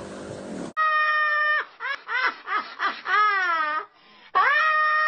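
An elderly woman's high-pitched cackling laugh: long held cries alternating with short bursts and a wavering, sliding pitch, breaking off briefly about four seconds in.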